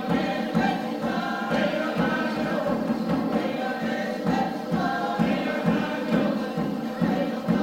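A group of voices singing together, over a steady low beat about twice a second.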